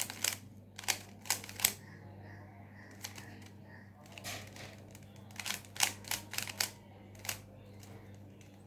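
Plastic Rubik's Cube being turned by hand: sharp irregular clicks and snaps as its layers turn, coming in quick clusters with short pauses between.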